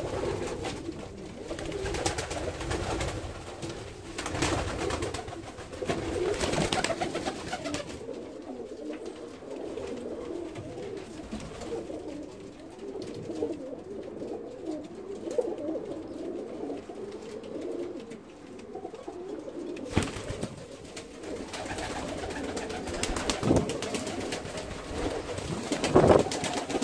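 Domestic pigeons cooing over and over in low, warbling coos, with a few short knocks in the second half.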